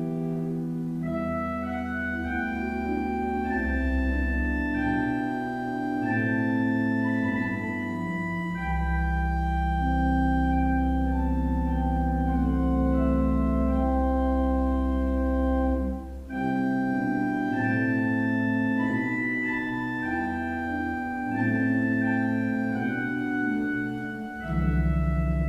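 Schantz pipe organ playing slow, sustained chords with deep pedal bass notes. The sound breaks off briefly about two-thirds of the way through, then the chords resume, and the bass returns near the end.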